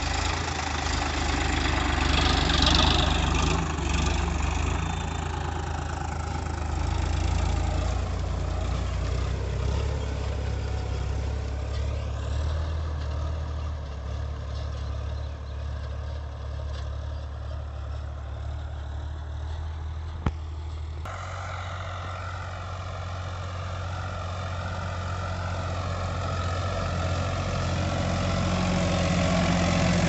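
Sonalika tractor's diesel engine running steadily under load as it pulls a disc harrow through dry soil. The sound changes abruptly about two-thirds of the way through.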